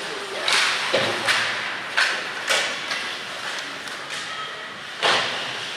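Ice hockey play on a rink: skate blades scraping the ice and sticks striking the puck and ice, heard as a string of sharp scrapes and clacks, with a heavier thud about a second in, echoing in the arena.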